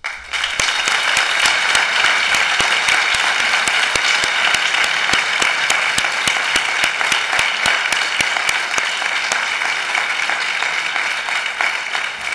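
Audience and councillors applauding, many hands clapping at once; it starts abruptly, holds steady and dies down near the end.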